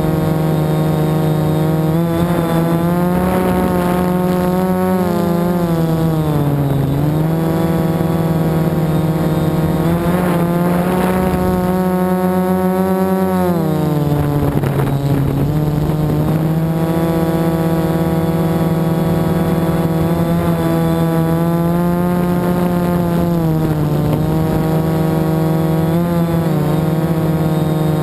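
FPV drone's electric motors and propellers buzzing loudly from on board, the pitch gliding down and back up several times as the throttle changes through low banked turns, over a steady hiss.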